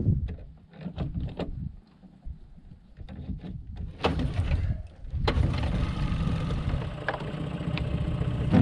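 Knocks and clatter of gear being handled in a small aluminium boat, then about five seconds in a boat's outboard motor starts and runs steadily.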